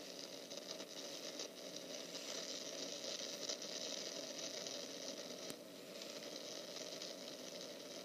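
Steady wind noise, a thin even hiss that swells slightly in the middle.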